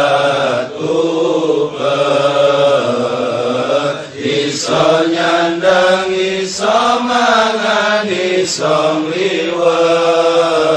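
A voice chanting a Javanese prayer in long, drawn-out melodic phrases, the pitch bending and breaking every second or two.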